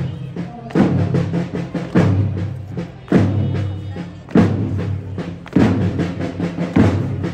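Slow march drumming: a deep drum struck about once every 1.2 seconds, each stroke ringing on until the next, with a few faint higher tones over it.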